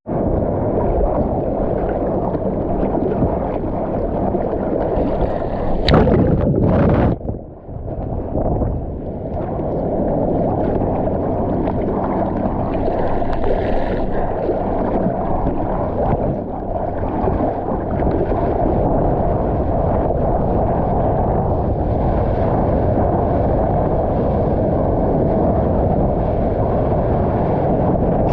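Sea water sloshing and wind buffeting a GoPro in the surf: a steady, muffled rush, with a louder splash about six seconds in that briefly drops away afterwards.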